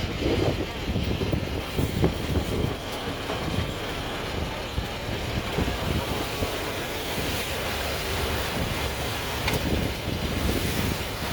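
Amphibious duck boat's engine running under way, a steady low rumble, with wind buffeting the microphone.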